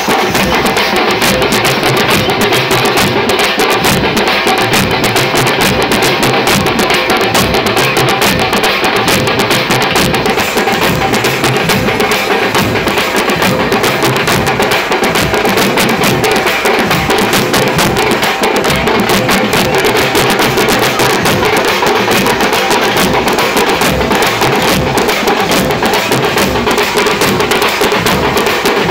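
A street drum band of many large frame drums beaten with sticks, playing a loud, fast, unbroken rhythm together.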